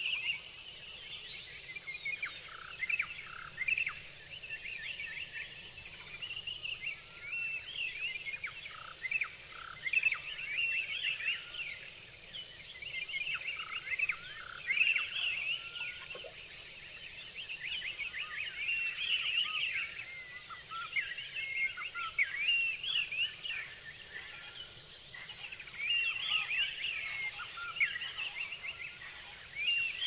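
Birds calling in a busy, continuous chorus of short chirps and whistled notes, over a steady high insect drone.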